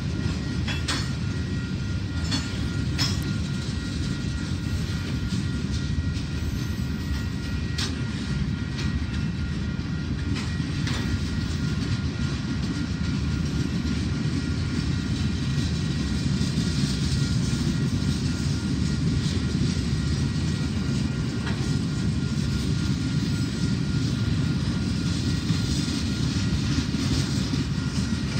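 Freight train cars rolling past: a steady rumble of wheels on rail, with occasional clicks from the wheels and a faint steady high tone.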